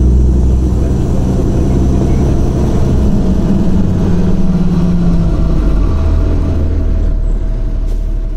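Cummins ISL diesel engine of a 2006 Orion VII transit bus running loud with a deep drone. Its note changes about five seconds in, and it grows quieter near the end.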